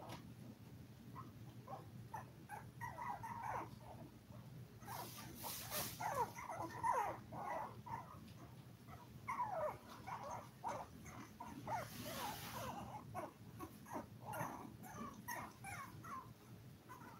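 Five-week-old toy poodle puppies whimpering: many short, high cries that slide downward, coming in clusters, over a low steady hum. Two brief bursts of hiss come about 5 and 12 seconds in.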